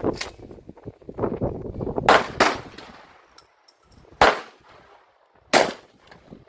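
Four gunshots: two in quick succession about two seconds in, then single shots about four and five and a half seconds in.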